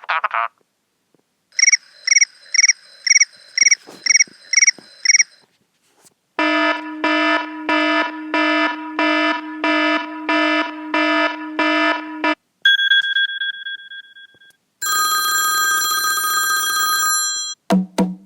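Old iPhone ringtones played one after another with short gaps between them. First a trilling ring that pulses about eight times, then a pitched tone repeating about one and a half times a second, then a short two-note chime, then a sustained tone, with the next ringtone starting at the very end.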